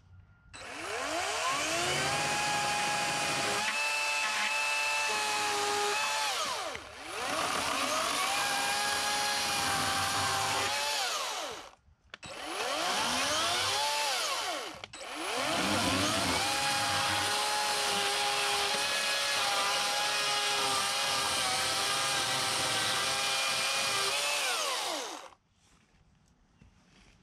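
Electric chainsaw cutting through the tops of upright wooden log posts, run four times: each run starts with a rising whine, holds steady through the cut, and winds down. The third run is short, and the last is the longest.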